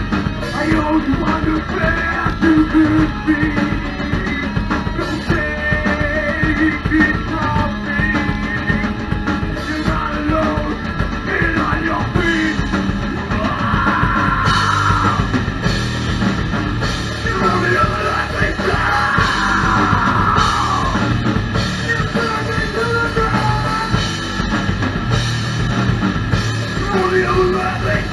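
Live rock band playing loud: electric guitar, bass guitar and drum kit, with sung vocals.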